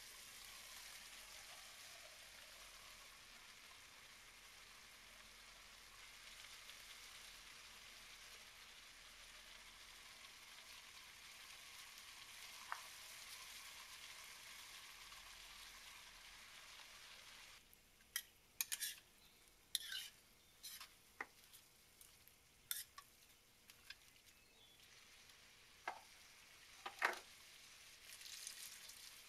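Prawns, squid and vegetables frying in a steel pan with a steady sizzle. About two-thirds of the way in the sizzle drops away, and a metal spoon clicks and scrapes against the pan a dozen or so times as tomato paste is stirred through. Near the end, water pours into the pan.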